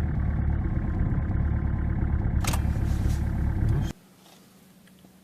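Diesel engine running just after catching on a cold start in about −39 °C frost, with a short sharp noise about two and a half seconds in; the engine sound cuts off suddenly near four seconds in.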